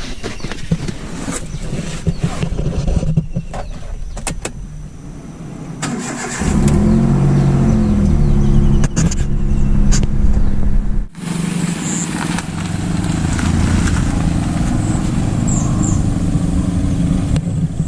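Clicks and knocks, then a car engine starting about six seconds in and running steadily.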